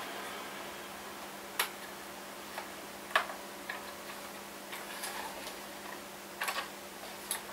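Small, sharp, irregular clicks and taps of model railway wheelsets being pressed and snapped into the axle mounts of a 00 gauge wagon held in the hands, with a quick run of three clicks near the end.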